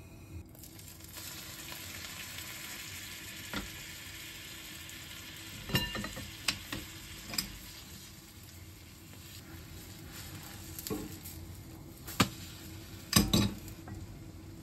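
Okonomiyaki frying in a pan with a steady sizzle, with several sharp clatters of cookware, pan and lid, the loudest near the end.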